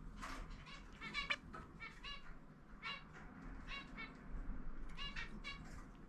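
Male zebra finch giving a string of short, quiet, pitched call notes in quick clusters: snatches of song held back, sung half under its breath.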